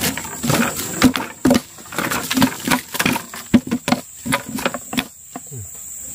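A freshly landed parang fish flopping and slapping against the wooden plank floor of a boat: a quick, irregular run of knocks that dies away about five seconds in. A steady high insect drone carries on underneath.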